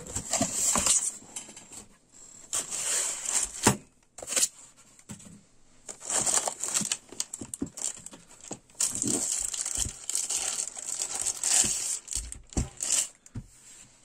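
Clear plastic bag crinkling and rustling in irregular stretches as hands strip it off a metal-cased bench power supply, with a few sharp knocks as the unit is handled.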